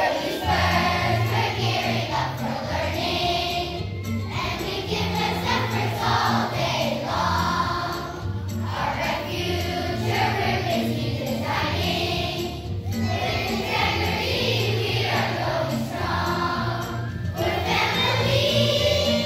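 Children's choir singing together over an instrumental accompaniment with a steady bass line.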